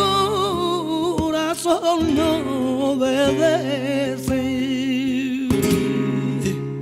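Flamenco music: a singer's wavering, ornamented voice over acoustic guitar, with guitar strums near the end.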